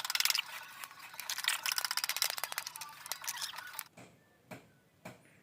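Ratchet wrench clicking in fast runs as the nuts on a motorcycle's clutch assembly are undone, giving way to a few scattered metallic clicks about four seconds in.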